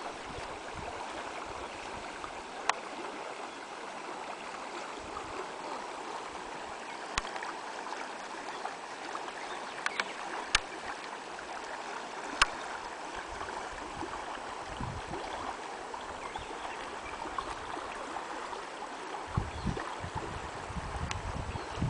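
A forest stream running steadily, with a few sharp clicks through it and some low thumps near the end.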